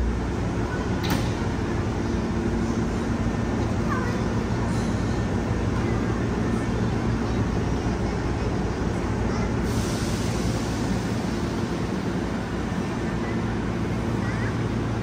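Steady hum and rumble of a Hankyu electric commuter train, with a sharp click about a second in and a brighter hiss coming in about two-thirds of the way through.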